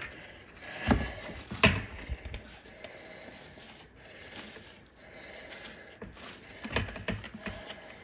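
Plastic dust bin of a Dyson Ball Animal upright vacuum being handled and emptied over a bagged trash can: two sharp plastic knocks about a second in, then small clicks, rattles and rustling as packed dog hair is worked out of the canister.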